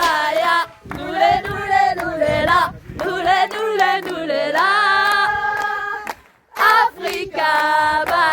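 A group of voices singing together without instruments, in short phrases with brief breaks and one near-silent pause about two-thirds of the way through.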